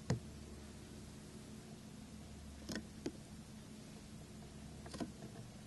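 Chinese ink brush working on paper mounted upright: a few short taps as the brush meets the paper, the first the loudest, over a steady low hum.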